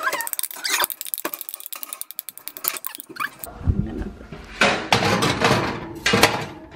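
Cake batter scraped out of a ceramic mixing bowl into a metal baking pan, a rapid run of scraping strokes; then, about three and a half seconds in, a few knocks and clatters as a metal cupcake pan is set into the oven.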